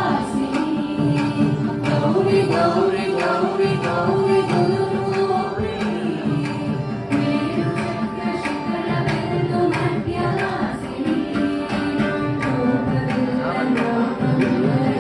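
Devotional group singing (a bhajan): a girl's voice leads on a microphone and a hall of women sing along, with violin accompaniment and a steady percussion beat.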